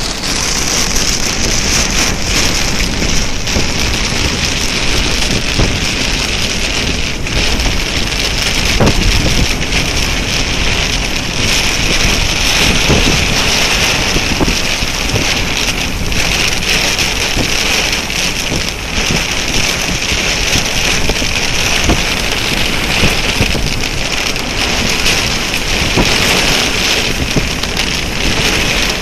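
Rain falling steadily as a dense, even hiss, with wind rumbling on the microphone.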